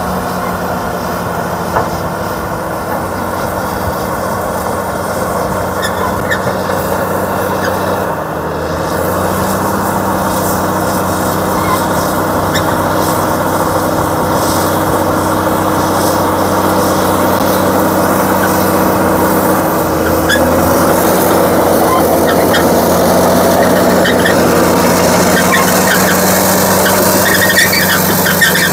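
Caterpillar D6T crawler dozer's six-cylinder diesel engine running under load. Its note steps up about eight seconds in and shifts again around twenty seconds.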